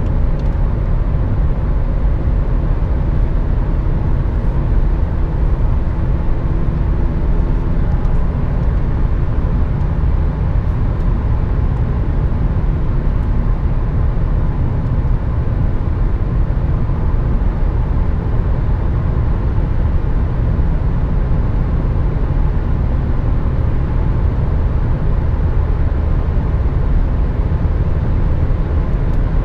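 Inside the cabin of a 2012 BMW 535i (F10) cruising on a highway: a steady low rumble of tyres and wind. A faint engine hum from its turbocharged straight-six is audible in the first several seconds, then fades into the road noise.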